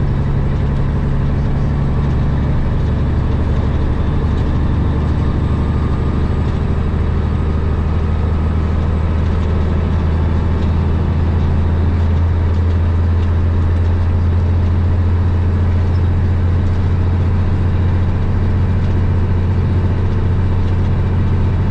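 Semi truck's diesel engine running at highway speed, a steady low drone heard from inside the cab, with road and wind noise over it.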